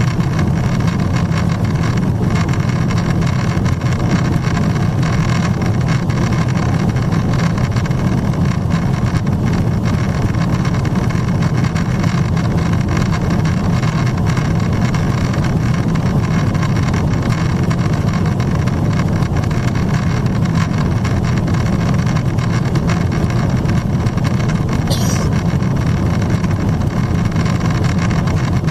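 Steady low roar inside the cabin of a Boeing 777-300ER climbing at altitude: its GE90-115B turbofans and the airflow over the fuselage, with no change in pitch or level.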